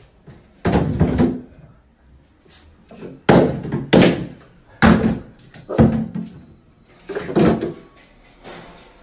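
Plastic toiletry bottles knocked off a bathtub rim, falling into the tub one after another: about six loud thuds and clatters, roughly a second apart.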